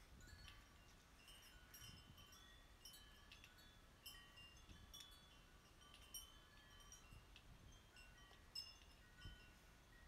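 Faint wind chime ringing: scattered high, clear chime tones at several pitches, struck every second or so.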